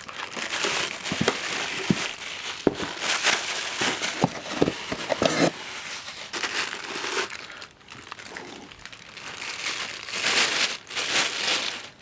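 Packaging being handled and crinkled, a continuous rustling with many sharp clicks and knocks, louder in two stretches with a quieter lull in between.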